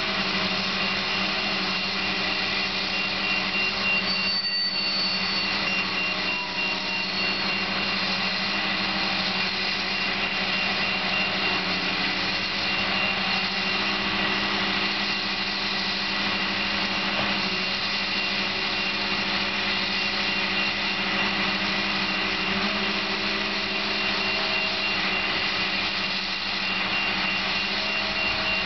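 Truck-mounted crane's engine running steadily under load while it holds and swings a suspended log cabin, a continuous drone with a thin steady high whine over it.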